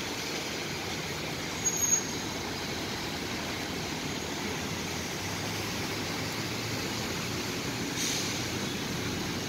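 Steady road traffic noise from cars and a truck driving slowly through a flooded street, with a brief high-pitched squeak about two seconds in.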